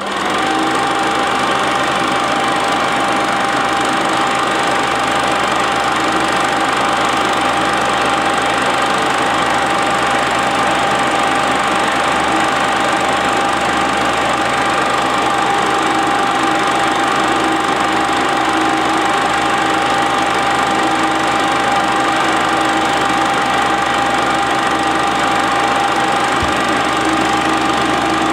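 Standard 8 cine projector running: a steady mechanical whirr and clatter from the film mechanism, with a held high whine from the motor that comes up within the first second.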